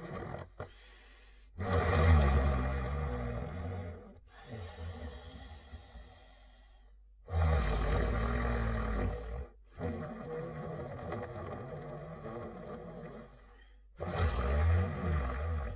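Cartoon dog character snoring in her sleep: three long, loud snores about six seconds apart, with quieter breathing between them.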